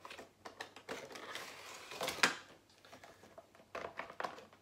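Cardboard and clear plastic packaging of a boxed vinyl bobblehead being opened and the plastic insert slid out: irregular clicks and rustling scrapes, the loudest scrape about two seconds in.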